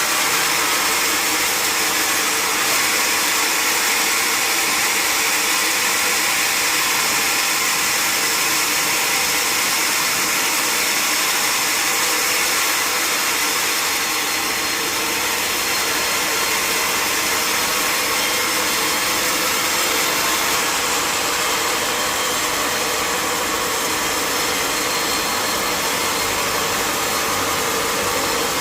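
Sawmill machinery running steadily, with an even, high-pitched rushing noise that does not change.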